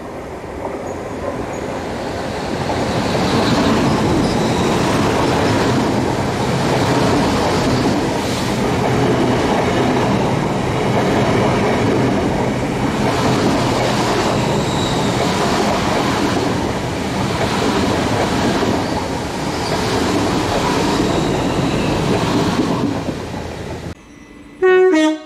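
GWR Hitachi Intercity Express Train running past at speed: a loud, steady rumble of wheels on rail that swells and eases as the coaches go by. Near the end the rumble cuts off and a short, loud blast of a train horn sounds.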